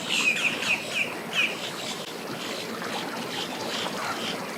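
A bird chirping: a quick run of short high chirps in the first second and a half, then fainter calls, over steady background noise.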